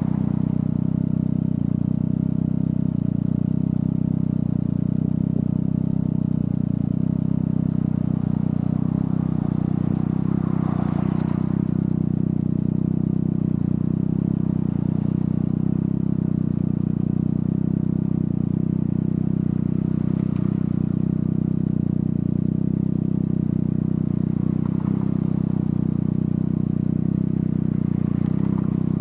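Triumph Daytona 660's three-cylinder engine running at steady revs, with a few brief rushes of noise now and then.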